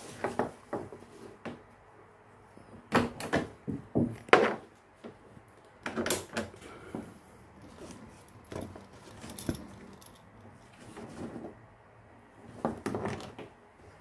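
A kayak seat's straps, plastic buckles and metal clips rattling and clicking as they are handled and fastened to the deck fittings of a plastic kayak hull, in irregular clusters of clicks, loudest in the first half.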